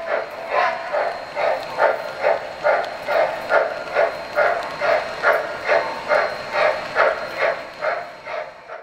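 Electronic steam-chuff sound from an MTH RailKing O-scale Norfolk & Western model steam locomotive's onboard sound system, a steady rhythm of about two and a half chuffs a second. It fades over the last second and cuts off.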